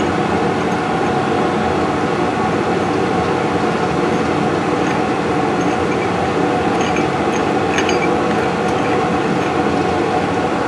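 Metal lathe running steadily under power, its motor and gear train whirring, while a boring bar cuts an internal thread in a steel nut.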